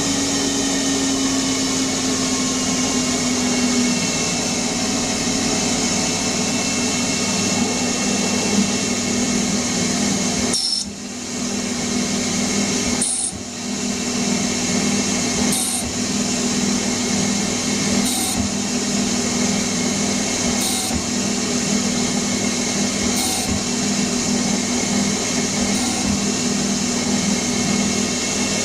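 CNC lathe running and machining, a dense steady whir with a low hum. The sound dips briefly twice near the middle, then short high ticks recur about every two and a half seconds.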